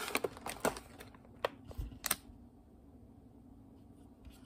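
Handling noise of packaging: a handful of sharp clicks and short rustles of plastic snack pouches and a tea canister being picked up, all in the first two seconds or so.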